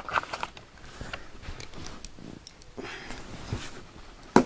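Handling noise as a cardboard shipping box is set down on a bed: soft rustling and light knocks, with one sharp knock near the end.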